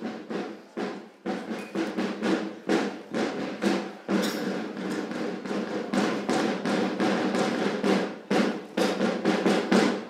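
A drumline of snare drums playing a rhythmic pattern of sharp hits and short rolls.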